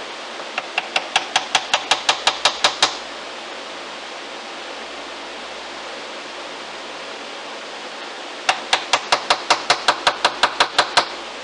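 Round wooden mallet striking a bench chisel in quick, even taps, about six a second, chopping out dovetail waste in a wood block. Two runs of about a dozen blows each, with a pause of several seconds between them.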